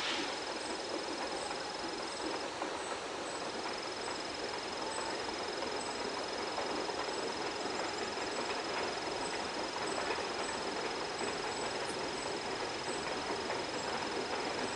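Scenic-railroad excursion train running on the rails: a steady rolling noise of wheels and cars that grows slightly louder over the stretch, with a thin, steady high whine over it.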